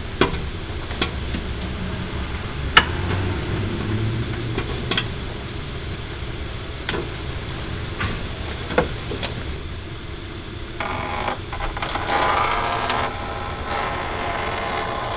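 A small band-style filter wrench and gloved hands working a spin-on oil filter loose: scattered sharp clicks and knocks over a steady low hum. About eleven seconds in comes a couple of seconds of crackling rustle.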